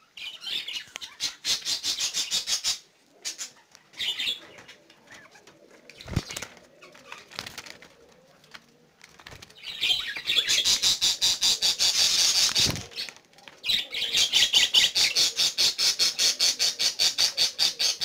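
Budgerigars in a breeding cage making loud bursts of raspy, rapidly pulsed sound, each lasting a few seconds, with two dull knocks from handling the cage or clay nest pot.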